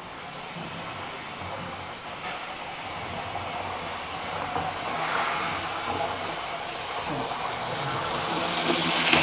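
A model train running on its track: a steady whirring hiss of its electric motor and wheels, growing louder toward the end as it comes closer.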